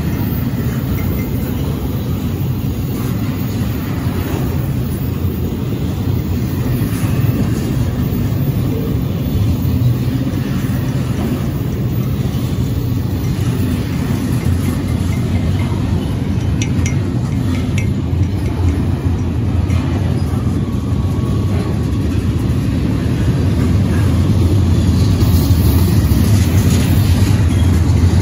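Double-stack container well cars of an intermodal freight train rolling past: a steady low rumble of steel wheels on rail, with a few brief faint squeals and clicks. It grows a little louder near the end.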